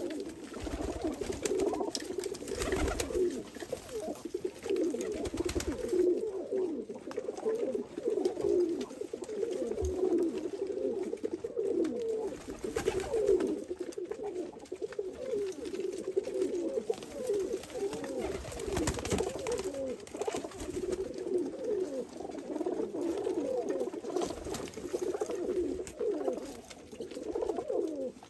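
A flock of domestic pigeons cooing without a break, many voices overlapping.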